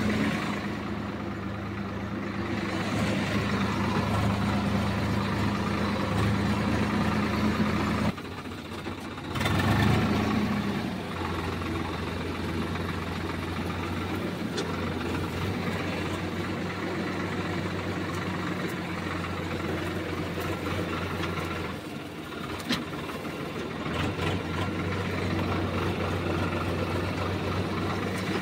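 Swaraj 744 tractor's three-cylinder diesel engine running steadily, heard from the driver's seat, with a brief rise in engine speed about ten seconds in and a couple of sudden breaks in the sound.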